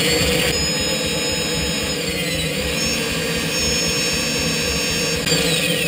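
Bench drill press running at steady speed with a high whine, its 4 mm bit boring into a block of extruded polystyrene foam. From about five seconds in the whine falls away as the drill spins down.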